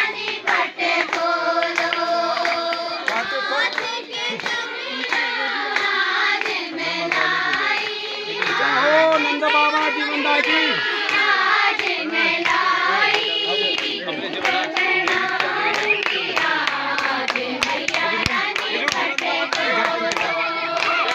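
A group of women singing a song together to steady rhythmic hand-clapping.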